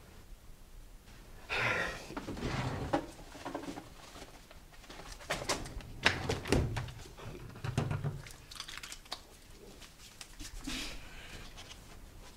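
Sheets of paper and a cardboard folder being handled on a desk: rustling and sliding paper with scattered clicks and a few dull thumps.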